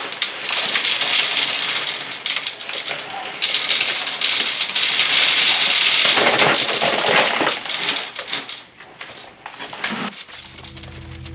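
Dry concrete mix pouring out of a bag into a small trench in a concrete floor: a steady gritty hiss with a short break about three seconds in, fading out after about eight seconds. Music comes in near the end.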